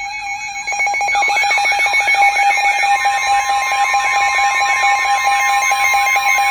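Layered electronic emergency-alert tones from a weather radio alert. A steady tone is joined under a second in by rapid pulsing beeps and a warbling siren-like tone that sweeps up and down about twice a second. A second steady tone comes in about halfway through.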